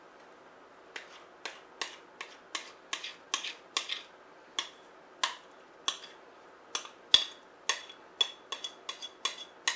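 A utensil scraping and knocking against the inside of a glass mixing bowl as batter is scraped out: quick sharp clicks, about two a second, starting about a second in, the later ones with a short ringing of the glass.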